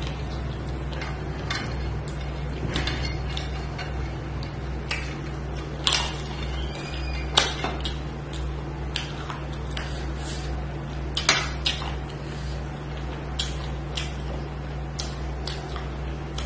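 Eating by hand from a stainless steel plate: fingers mixing rice and curry, with scattered sharp clicks and clinks against the plate and chewing, over a steady low hum. The loudest clicks come about six, seven and eleven seconds in.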